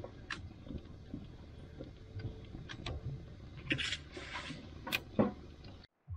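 Split logs burning in a metal mangal, crackling with scattered sharp pops over a low steady rumble of flame, with a brief hissing flare a little after halfway. The sound cuts off suddenly near the end.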